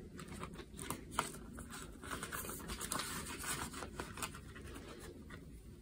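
Paper banknotes and a clear plastic cash envelope rustling and crinkling as bills are slid into the envelope; faint, with scattered small crackles that thin out near the end.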